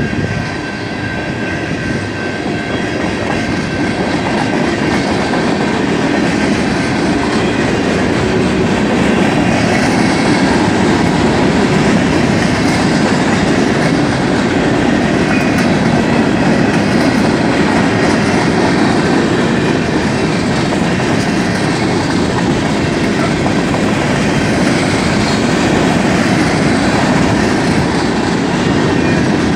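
Freight cars of a BNSF mixed freight train, tank car and open-top hoppers, rolling past at close range. Their steel wheels make a steady rumble on the rails that builds a little over the first few seconds and then holds level.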